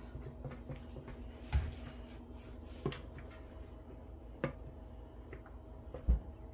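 Spatula scraping thick soap batter out of a plastic pitcher, with four soft knocks about every second and a half as it works the pitcher's rim and sides, over a faint steady hum.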